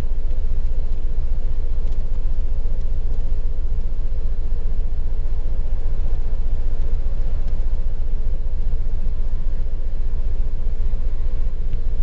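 The Jeep Wrangler's 3.8-liter V6 engine running steadily during a cam/crank relearn. The engine has a misfire and camshaft position sensor codes, and its cam and crank signals are out of sync.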